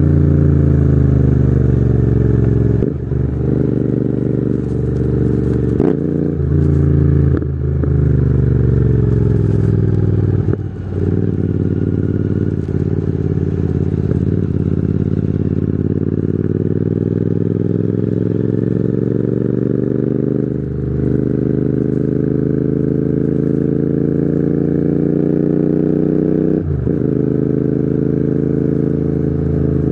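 Royal Enfield Continental GT 650's parallel-twin engine running through a Red Rooster aftermarket exhaust while riding. The engine note falls and rises in pitch, broken by several short sharp breaks.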